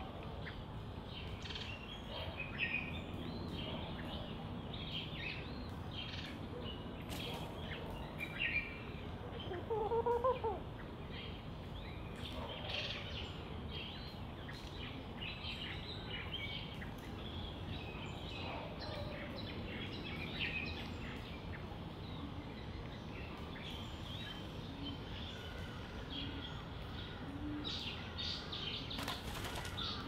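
Doves fluttering their wings as they jostle over seed, while small birds chirp in short high notes throughout. Around ten seconds in comes a louder, lower call that rises slightly.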